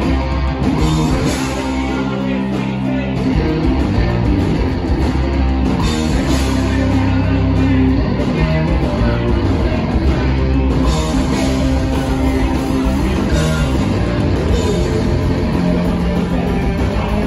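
Loud live hardcore punk band playing: electric bass, guitar and drums, with heavy low end.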